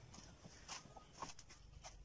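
Faint handling sounds: a few soft, short taps and rustles as a banana-stalk toy gun is laid down on a wooden table.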